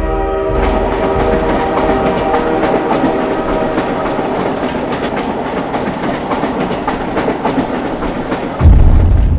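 Passenger train coaches rolling past close by, the wheels clattering in a rapid run of clicks over the rail joints. Near the end a sudden, loud, deep rumble comes in.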